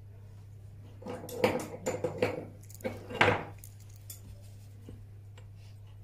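A short run of hard clinks and knocks as a stone dental cast and steel orthodontic pliers are handled, starting about a second in and dying away after about two and a half seconds.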